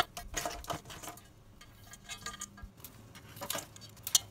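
Kitchen scissors snipping through the shell and legs of a raw blue swimming crab over a stainless steel bowl, an irregular series of sharp snips and cracks.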